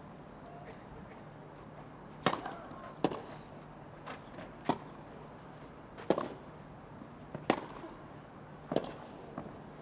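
Tennis rally: racket strikes on the ball, six sharp hits about a second and a half apart, with a few fainter ball bounces between them.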